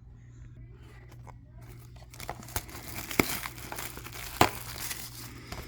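Packaging being torn open and crinkled by hand as a box of trading-card packs is opened. The sound starts about two seconds in and includes a couple of sharp snaps.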